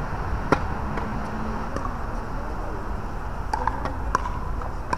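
Tennis ball knocks on an outdoor hard court over steady background noise. A sharp pop comes about half a second in, a few lighter ball bounces follow, and the serve is struck a little after four seconds in.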